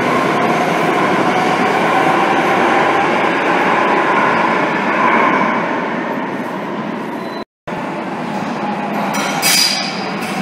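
Madrid Metro Serie 5000 train pulling out of an underground station, its running rumble fading into the tunnel. After a sudden cut, another metro train comes into a platform, with high wheel squeals near the end.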